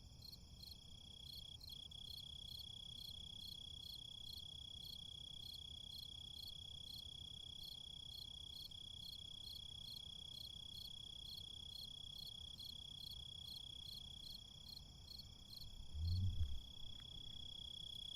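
Crickets chirping in a city: a steady high trill with chirps repeating about two to three times a second, over a low background hum. About sixteen seconds in, a brief low rumble is the loudest sound.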